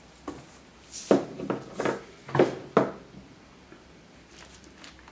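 Plastic desiccant canisters being taken out of a plastic tub and set down on a wooden table: about five sharp knocks and clatters in the first three seconds, then only faint handling sounds.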